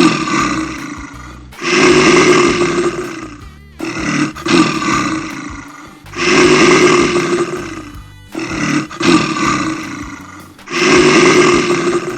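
A big cat roaring, about six loud, rough roars in a row, each lasting a second or two, coming roughly every two seconds.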